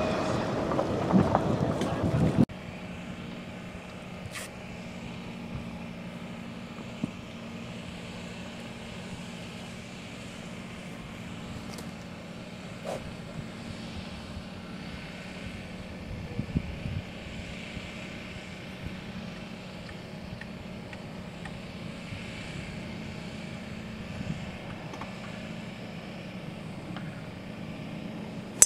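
Murmur of voices for the first couple of seconds. Then a steady low distant engine drone, with a few faint sharp clicks, among them a driver striking a golf ball off the tee.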